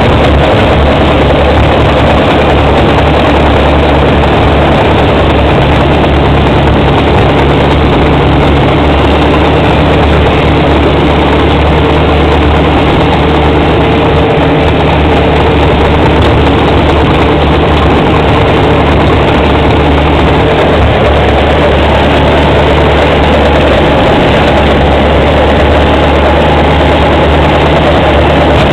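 Bulldozer's diesel engine running loud and steady, a constant low drone.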